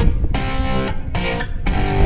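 Background music led by guitar, with held chords and strummed strokes.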